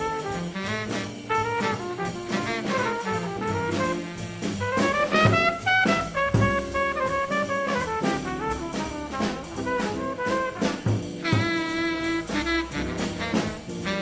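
Jazz quintet playing a bebop tune: trumpet and saxophone lines over double bass and drums, with a quick rising run around the middle and a long held horn note near the end.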